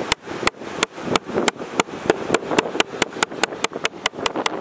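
Small metal meat mallet pounding bait on a plastic cutting board, a run of sharp knocks about three a second that quicken toward the end, beating the bait to release its flavour.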